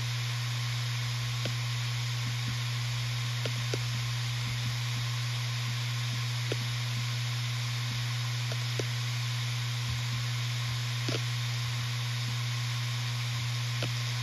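Western Digital RE 4TB (WD4000FYYZ) 7200 rpm hard drive spinning: a steady hum at its spindle speed, with a steady hiss and scattered light clicks of the heads seeking.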